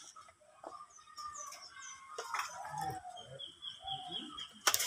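Small birds chirping and whistling, with quick runs of short, high, falling notes heard twice. A brief sharp click comes near the end.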